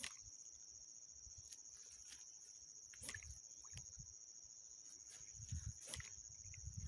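Quiet pond-side ambience: a faint, steady high-pitched insect drone, with a few soft clicks and low thumps from handling near the microphone.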